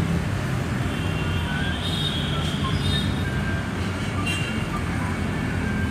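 Steady low mechanical rumble, with short high-pitched chirps scattered through it.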